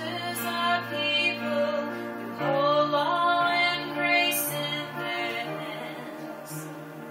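A woman singing a worship song while accompanying herself with held chords on a Korg electric keyboard. Her voice drops out about five seconds in, leaving the keyboard chords ringing.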